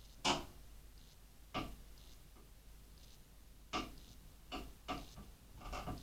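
A screwdriver and small hardware being handled during PC assembly: about six sharp clicks and light taps at irregular intervals. The loudest comes right at the start, and a few come close together near the end.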